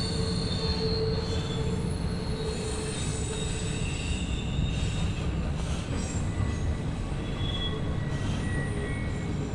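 Double-stack intermodal freight cars of a CSX train rolling past: a steady low rumble of wheels on rail, with faint high squealing tones coming and going.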